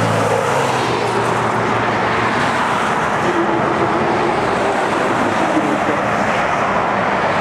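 A truck's engine running steadily under a dense rushing noise. A low engine tone fades out in the first second.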